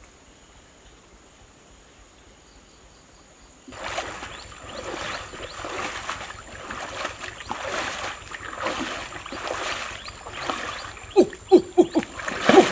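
Faint background at first, then, a few seconds in, river water splashing and churning as a person wades and sweeps a long wooden pole through it. Near the end come several sharp, loud splashes with short hollow plops.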